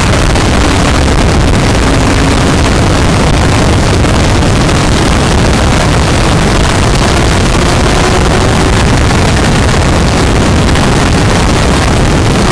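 Motorcycle at track speed heard from an onboard action camera: steady, loud wind rush on the microphone, with the engine's note faintly underneath, its pitch drifting down and back up.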